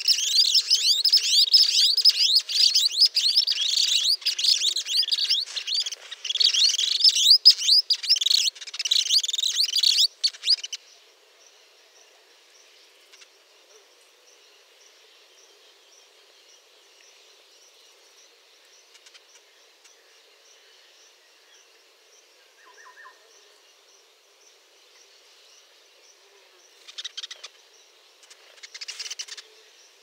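Dense, loud, high-pitched bird chirping and twittering, many quick gliding notes overlapping, for the first ten seconds or so, then cutting off suddenly. After that only a faint steady high hiss remains, with two short bursts of chirps near the end.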